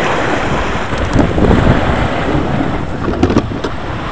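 Wind buffeting the microphone over sea waves washing against a rocky shore, with a few faint knocks near the end.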